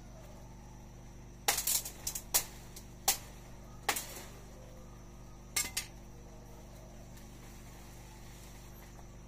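Sharp strikes of a blade hacking at tree branches: a quick cluster of cracks about one and a half seconds in, single strikes about three and four seconds in, and a double strike near six seconds.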